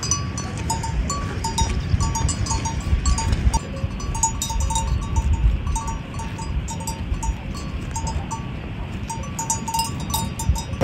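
Livestock bells on grazing horses clinking irregularly, short metallic rings repeated many times, over a steady low rumble.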